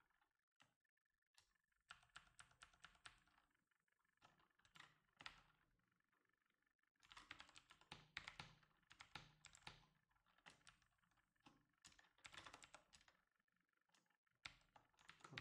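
Faint typing on a computer keyboard: keystrokes clicking in several quick runs with short pauses between them.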